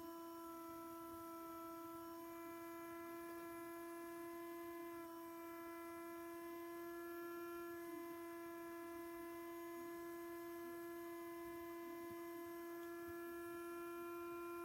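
Electronic siren made to sound like a Darley Model 2, holding one steady tone with overtones, with no rise or fall in pitch.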